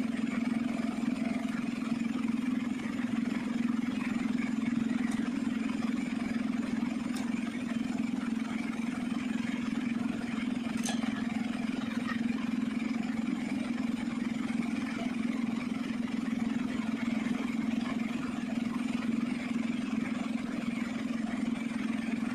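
A steady low machine hum that holds unchanged throughout, with a few faint clicks.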